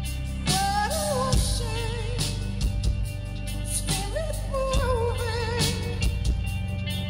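Live rock band playing a slow song. A female lead singer holds two long, wavering phrases with wide vibrato, starting about half a second and four seconds in, over drums with cymbals, bass and guitar.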